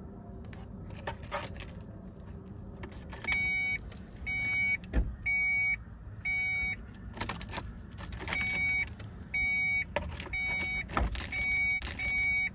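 A 2005 Ford Fiesta's warning chime beeping, about ten half-second beeps at one pitch starting a few seconds in, with sharp clicks and the jangle of the ignition key, whose switch turns with no spring-back.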